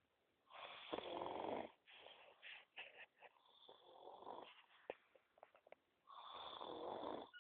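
A sleeping man snoring: two long snores about five seconds apart, with smaller snorts and breath noises between them.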